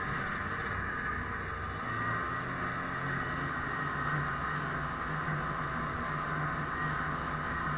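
Snowmobile's two-stroke engine running at a steady cruising speed under way, heard from aboard the sled, with a steady hiss of track and wind over it.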